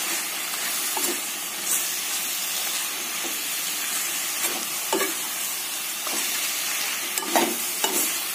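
Radish slices, onions and spice powder frying in oil in a kadai while being stirred: a steady sizzle, with a metal spatula scraping and knocking against the pan a few times, several strokes close together near the end.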